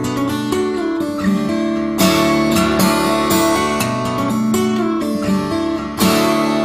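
Background music of strummed acoustic guitar, with heavier strummed chords about two seconds in and again near the end.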